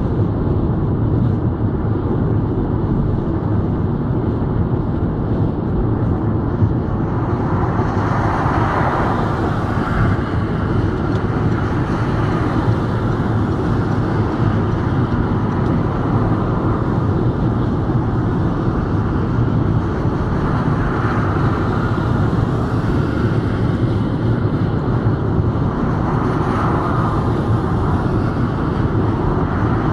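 Steady engine and tyre rumble of a car driving at speed on a motorway, heard from inside the cabin, with a few swells of louder hiss, the first about eight seconds in.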